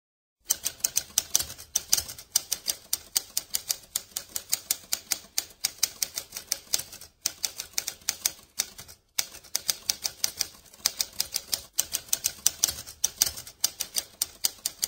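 Typewriter keys clacking rapidly, about seven strokes a second, as text is typed out. The typing pauses briefly twice in the middle.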